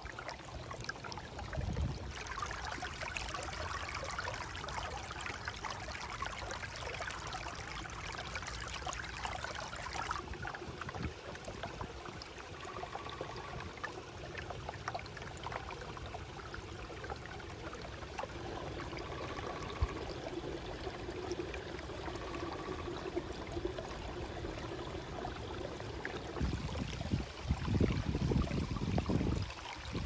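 Shallow creek water trickling and running over rocks and ice, a steady rush that shifts in character twice. A low rumble comes in near the end.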